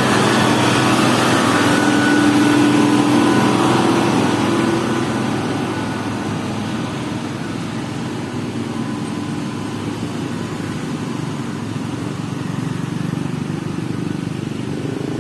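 A road vehicle's engine running as it passes, louder for the first few seconds and then fading into steady traffic noise.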